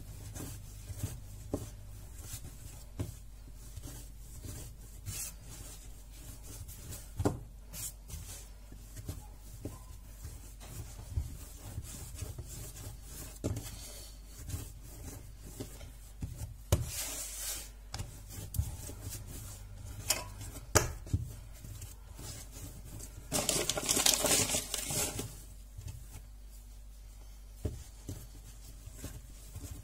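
Semolina bread dough being kneaded by hand on a tiled worktop: soft rubbing and pressing with scattered thumps as the dough is pushed down and turned. A louder stretch of rustling about three quarters of the way through.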